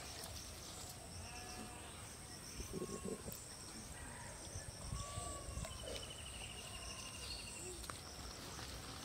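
Faint outdoor rural ambience: scattered short animal calls, a fast even trill for about a second and a half in the second half, and a steady high-pitched insect whine.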